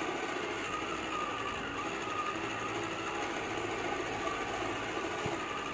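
Small electric motor and gears of a battery-powered toy pottery wheel whirring steadily as it spins a lump of wet clay. Its batteries are running low, so the wheel turns slowly.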